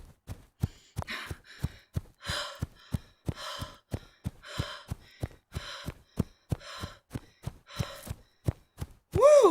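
Quick footsteps, about three a second, under a woman's heavy panting breaths, about one a second, as she hurries along carrying a man on her back. Near the end she lets out a loud, strained groan.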